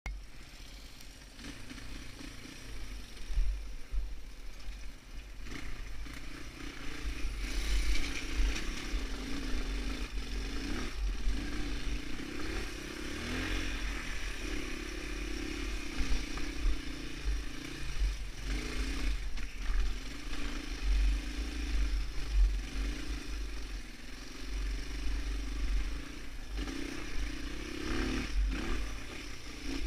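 Honda XR200R's air-cooled single-cylinder four-stroke engine running on a trail ride, its note rising and falling with the throttle. A steady low rumble of wind and bumps on the microphone runs beneath it.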